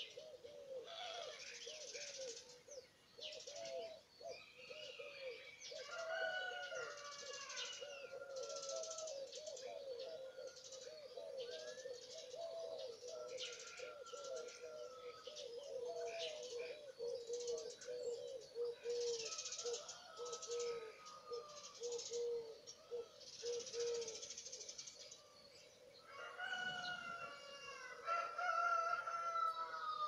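Birds singing. A low call repeats several times a second under the song and stops about five seconds before the end. Near the end a louder, clearer song phrase comes in.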